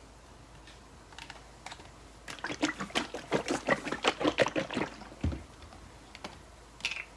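A quick, even run of light clicks and taps, about five or six a second for some two and a half seconds, then a dull low thump and one more click near the end.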